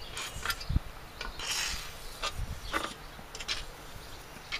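Short hisses of a WD-40 aerosol can sprayed through its straw onto the underside of a miter saw's turntable, the longest about half a second, about a second and a half in. Scattered clicks and knocks of the can and saw being handled come between the hisses.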